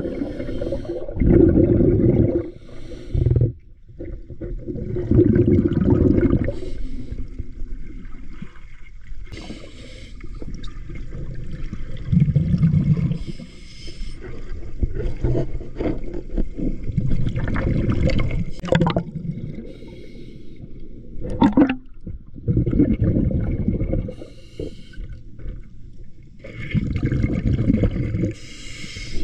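Water sloshing and gurgling, heard underwater through a submerged camera: muffled, low surges that swell and fade every few seconds.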